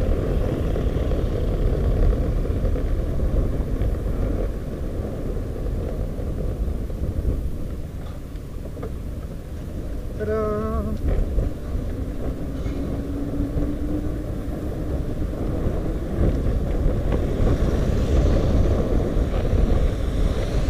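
Sinner Mango velomobile rolling along a wet road: steady tyre and road rumble with wind noise, and car traffic passing alongside. About halfway through, a brief wavering tone cuts in over it.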